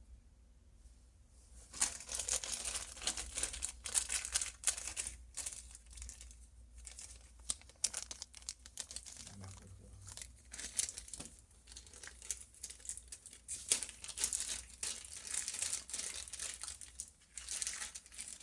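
Close, irregular rustling and crinkling with scattered small clicks from hands handling the trimmed Ethernet cable wires and small plastic parts, starting about a second and a half in.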